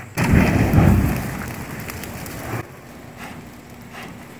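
A bucket of gasoline dumping onto a burning copier and igniting in a low rushing whoosh that fades and stops abruptly about two and a half seconds in, leaving a quieter fire.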